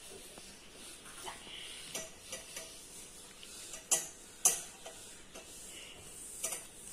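Orange plastic mesh sieve being worked over a plate to sift a roasted wheat and milk-powder mix: a soft rustle of powder passing through the mesh, broken by a few sharp taps, the loudest about four and a half seconds in.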